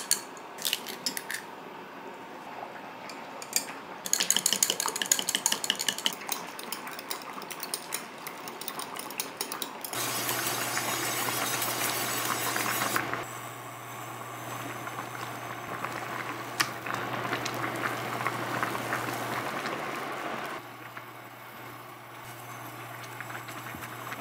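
A wire whisk clicking rapidly against a glass measuring cup as eggs are beaten. From about ten seconds in, egg batter sizzles in an oiled egg-roll pan over a low steady hum, quieter for the last few seconds.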